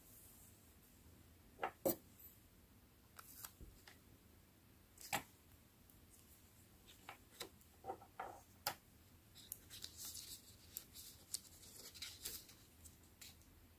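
Quiet paper-crafting sounds: scattered sharp clicks and taps as metal tweezers handle a small paper sticker over a mini notebook. Near the end comes a short crinkly rustle as the sticker is pressed onto the page.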